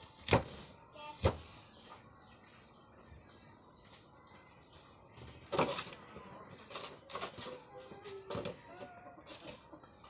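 Metal cleaver chopping onions on a stone slab: two sharp knocks about a second apart near the start, then several more spaced about a second apart in the second half.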